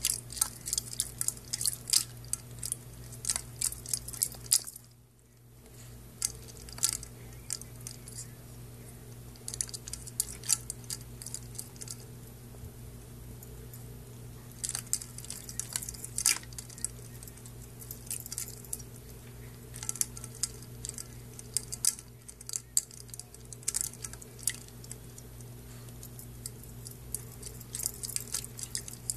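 Ice cubes clinking against a stainless steel dog bowl, with small splashes of water, as a Maltese puppy paws at them. The clinks come in bursts of rapid sharp clicks with short pauses between.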